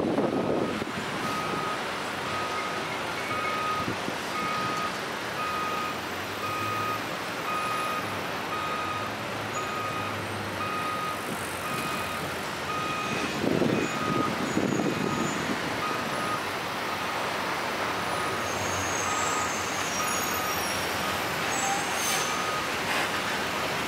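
Reversing alarm on a truck beeping steadily, a little more than once a second, for about fifteen seconds over idling city traffic. A louder engine rumble rises briefly midway, and short high squeals, like air-brake or brake squeal, come near the end.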